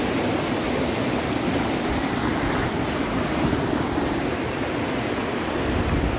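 Steady rushing of a mountain creek's water.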